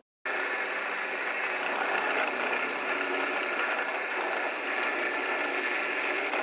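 Electric drill motor running steadily while drilling the screw holes for brass catches. It starts abruptly just after the beginning.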